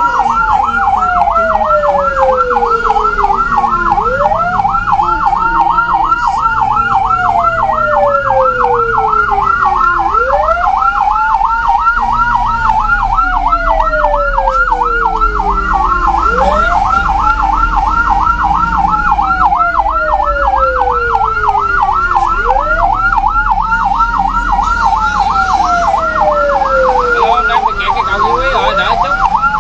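Ambulance siren sounding continuously. A fast warbling tone trills several times a second, layered with a slower wail that sweeps up quickly and then falls over about five seconds, repeating about every six seconds. A low vehicle rumble runs underneath.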